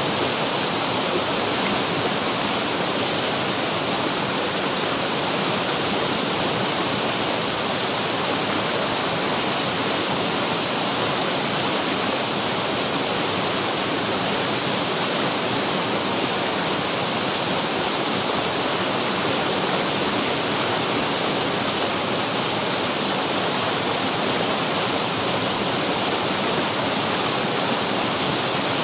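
Mountain stream running over rocks in small rapids: a steady, unbroken rush of water.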